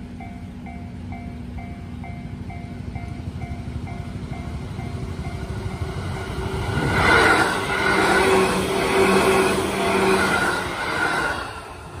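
Japanese railway level-crossing warning bell ringing in a steady repeating two-tone pattern until about five seconds in. A JR Nara Line 205-series electric train then passes loudly from about seven seconds until near the end, with wheels rumbling on the rails and a steady whine.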